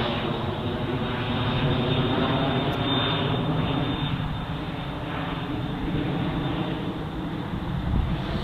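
Jet airliner engine noise: a steady rumble with a hum of several tones, easing slightly about halfway through.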